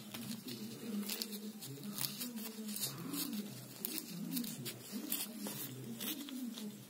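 Sandpaper rubbed by hand against a rough concrete wall: short, irregular scraping strokes, about one or two a second. Under them runs a low voice-like sound whose pitch rises and falls.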